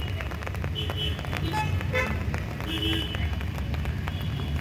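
Rain falling with scattered sharp drop ticks over a steady low rumble of city traffic, with a few brief high tones about a second in and again about three seconds in.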